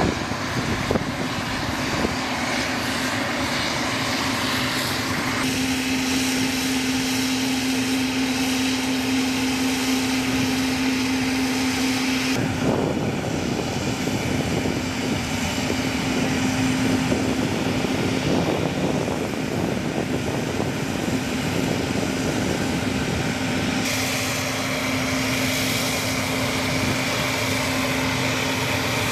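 US Navy LCAC hovercraft's gas turbine engines, lift fans and propellers running, a steady noise with a constant low hum. The mix shifts abruptly a few times.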